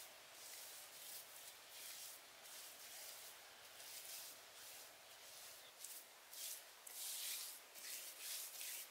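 Bare hands rubbing and smoothing wet clay: faint, irregular rubbing strokes that come and go, a little stronger near the end.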